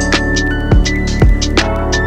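Background music: an electronic track with a steady beat of kick-drum thumps and high ticks over sustained synth chords.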